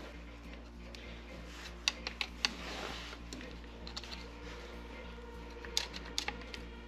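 Light clicks and taps of small hand tools and metal parts being handled while an ignition coil is bolted on and wired, in two short clusters, over a steady low hum.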